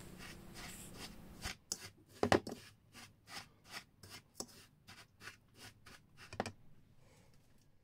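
Metal fork scraping and stirring through dry breadcrumbs in a bowl: a run of short, faint scratchy strokes, about three a second.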